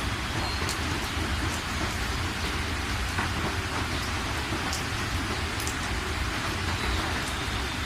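Steady rain falling, with scattered sharp drop ticks and a continuous low rumble underneath.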